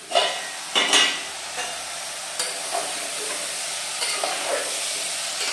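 Bottle gourd and soaked chana dal sizzling in masala in an aluminium pressure cooker on a gas flame, stirred and scraped with a metal spoon. A couple of sharp metal clanks come within the first second, as the cooker's lid comes off.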